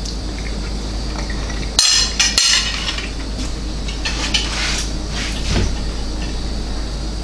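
Fork clinking and scraping against a plate, two sharp clinks about two seconds in, then a few softer ones, over a steady low hum.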